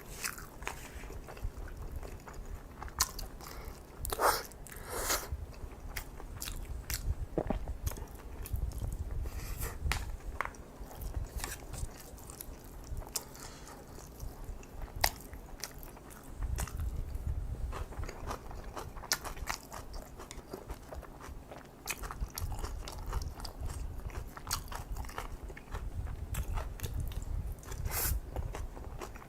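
Close-miked eating of kimchi fried rice with kimchi: steady chewing with crunchy bites and many sharp wet clicks.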